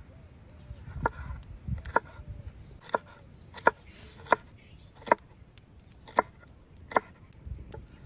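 Chef's knife slicing a green bell pepper and knocking on a wooden cutting board: about eight sharp chops, roughly one a second and not evenly spaced.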